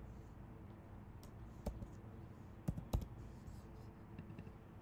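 A few scattered, quiet keystrokes and clicks on a computer keyboard as code is typed.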